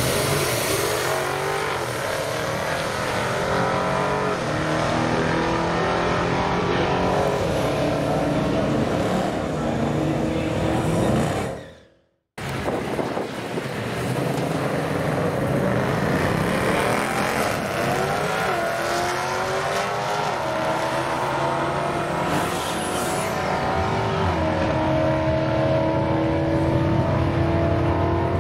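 Modern HEMI V8 drag cars running hard down the strip, engine notes climbing and stepping through the gears. Two separate passes are joined by an abrupt cut about twelve seconds in.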